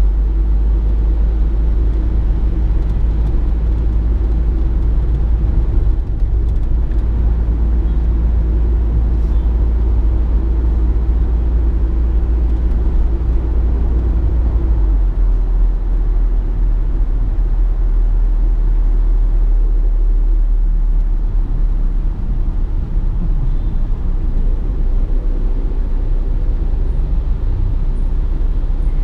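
A car on the move: steady engine and road rumble, which eases slightly about halfway through.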